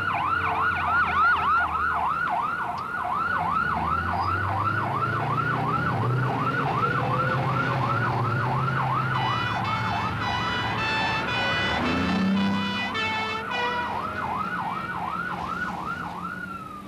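Airport crash fire rescue vehicle's American-style warbler siren sounding, a rapid rise and fall about three times a second, with the vehicle's engine running underneath. A higher, stepped beeping pattern joins for a few seconds in the middle, and near the end the siren winds down and stops.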